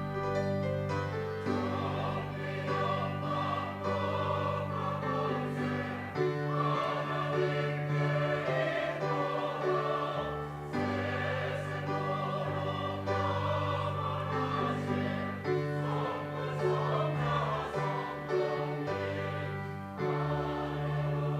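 Church choir singing an anthem, long held notes with vibrato over continuous instrumental accompaniment.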